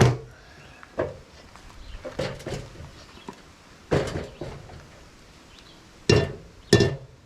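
Hammer blows on the steel tube of a Ford 9-inch axle housing, knocking out a heated dent with a 10-pound weight: about six sharp metallic strikes at uneven intervals, two in quick succession near the end.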